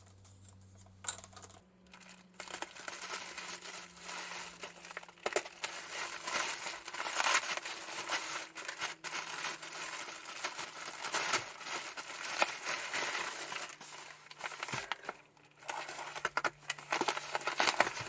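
A cardboard parcel being opened by hand: packaging crinkling and rustling, with tearing and many small knocks and clicks, after a quieter first couple of seconds.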